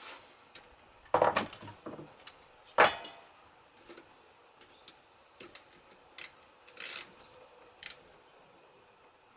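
Irregular metallic clinks and knocks of hand tools on a motorcycle fork leg as the bolt in the bottom of the leg is tightened. The loudest knocks come between one and three seconds in, with a short metallic rattle near seven seconds.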